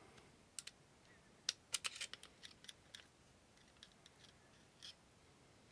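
Scattered small clicks and scrapes of a tool prying at the locking block inside a Glock 34 clone's pistol frame, with a burst of sharp ticks around two seconds in and a few more later.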